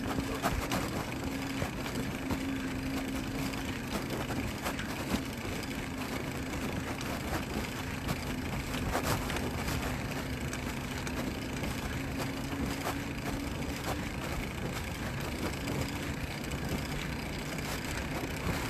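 Wind on the microphone and road noise from a two-wheeled vehicle riding along a street, with a steady hum that fades out about three quarters of the way through and occasional clicks and knocks.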